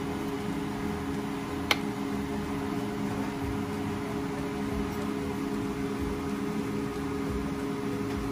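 Steady hum of a kitchen fan motor, with a few low steady tones over an even whoosh. About two seconds in, a single sharp click of the metal serving spoon against the plate.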